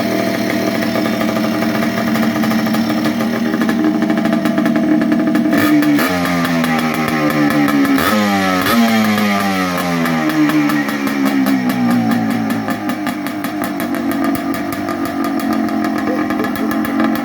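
Yamaha Blaster ATV's single-cylinder two-stroke engine running on a freshly rebuilt top end. It runs steadily, then its speed rises and falls several times in the middle before settling again.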